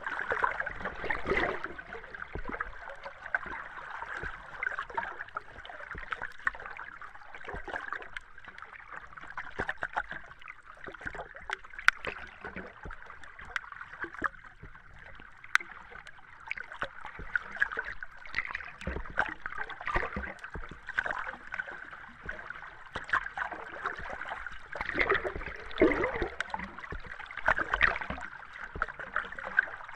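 Underwater ambience: a steady muffled water wash with scattered bubbling pops and clicks, swelling into louder bubbling bursts a few times.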